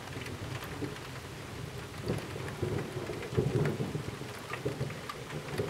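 Heavy rain falling steadily, with scattered drops ticking close by, as a low thunder rumble builds about two seconds in and is loudest around the middle before easing.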